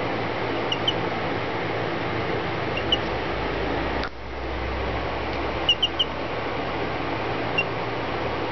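Baby chick peeping: about seven short, high peeps scattered through, with three in quick succession about two-thirds of the way through, over a steady background hiss.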